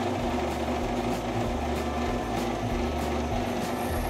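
Drill press motor running steadily as a 9/64-inch twist drill is fed down to open up an already drilled 1/8-inch pilot hole, one step in drilling up to 5/32 inch.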